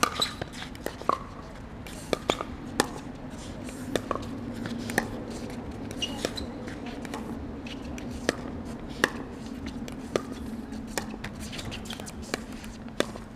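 Pickleball paddles hitting a hard plastic pickleball back and forth in a rally: a string of sharp pops at irregular intervals, about one a second and sometimes two in quick succession.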